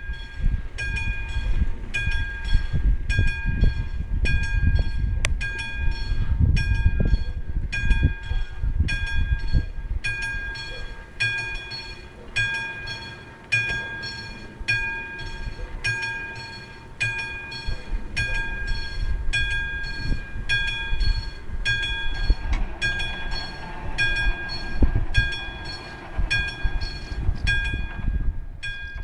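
Classic level-crossing warning bell on an AŽD 71 signal, striking steadily at about three strokes every two seconds, each stroke a bright ringing clang. Low rumble underneath.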